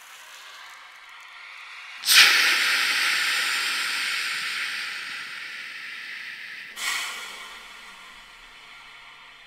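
A loud hiss of rushing air sets in suddenly about two seconds in and slowly fades, then a second, shorter burst comes near the end. It is one of the wind-like noise sounds of an experimental sound piece for trumpet and soprano saxophone.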